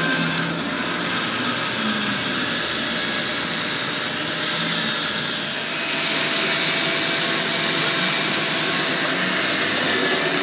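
Electric grinder running under load: a steady high whine over a loud hiss. The loudness pulses quickly for the first few seconds, then evens out about halfway through.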